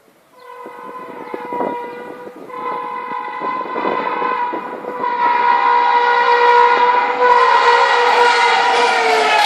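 Indian Railways locomotive horn blowing one long continuous blast that grows steadily louder as the train approaches, over the clatter of wheels on the rail joints. The horn's pitch drops slightly near the end.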